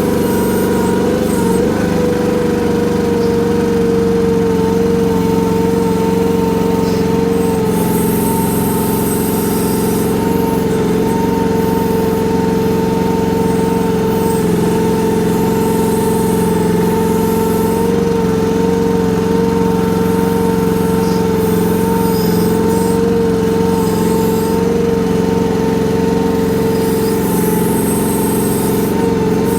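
Chinese mini excavator running steadily at working speed, its engine and machinery giving a constant high whine that wavers only slightly in pitch. Short hissy, rattling patches come about a third of the way in and again near the end.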